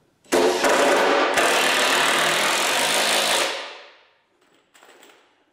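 Cordless driver sinking a deck screw into a workbench board, running in two stretches with a short break between them and then trailing off. A brief, quieter burst of the driver follows near the end.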